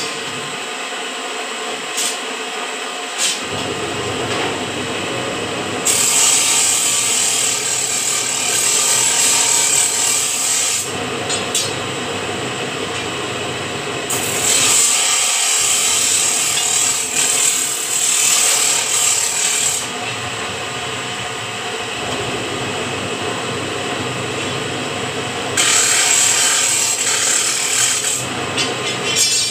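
Electric square-bar bending machine running, its motor and gears turning the bending disc. Three longer stretches of louder scraping hiss come as the disc turns and the steel bar is wound into a scroll around the die.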